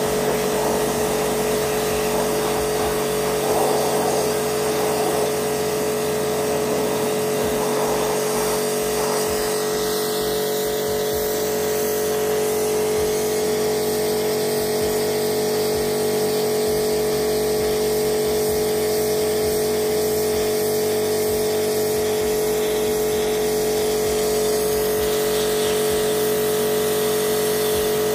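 Pressure washer running with a steady motor hum, with bursts of its water jet spraying against the boat's fibreglass hull in the first several seconds.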